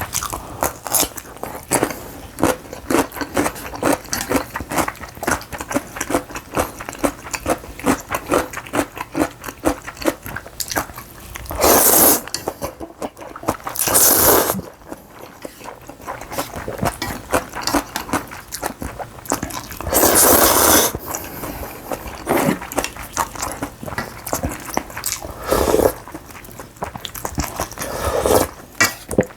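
Close-miked eating: rapid chewing and crunching, broken a few times by louder noisy sounds about a second long.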